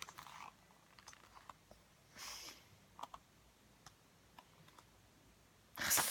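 Paper handling while leafing through an album photobook: scattered small clicks and taps, a short rustle of a page about two seconds in, and a louder rustle near the end.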